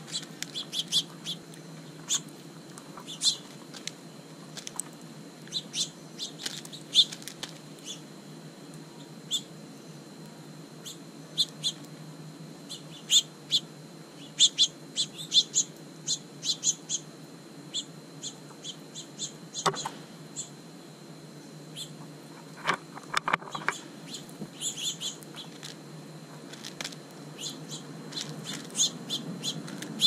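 Small birds chirping in many short, high calls, scattered and irregular, over a steady low background hum.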